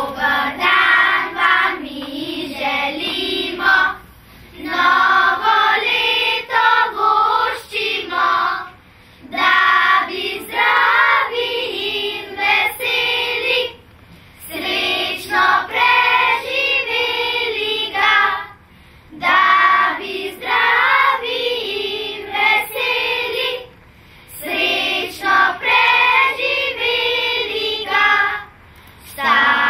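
Children's choir singing a song in phrases of about four to five seconds, with a short pause for breath between phrases.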